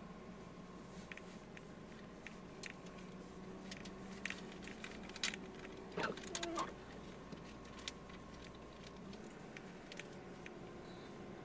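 Faint steady engine hum inside the cabin of a PT Cruiser creeping down a steep snowy road in low gear, with scattered light ticks. About six seconds in there is one brief sound that slides down in pitch.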